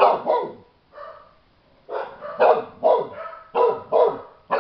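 Adult chow-chow barking, about nine short, loud barks: two at the start, one weaker, then a quick run of about six more from about two seconds in.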